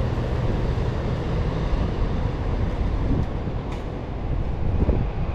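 Steady low rumble of urban vehicle noise.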